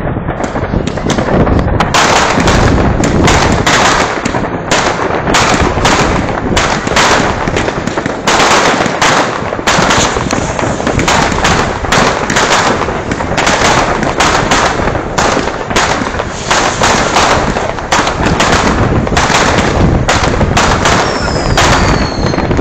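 New Year's fireworks, many going off at once: a dense, unbroken run of bangs and crackles, several a second.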